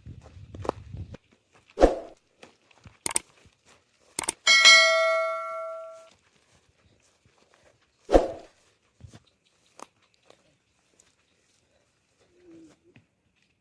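A few sharp knocks, and about four and a half seconds in a metal object struck once, ringing with a clang that dies away over about a second and a half.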